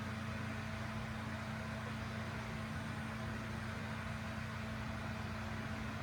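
A steady low mechanical hum with several constant tones, unchanging throughout.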